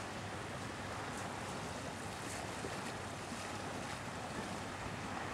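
Steady rushing noise of wind and lapping water on a reservoir shore, with no distinct events.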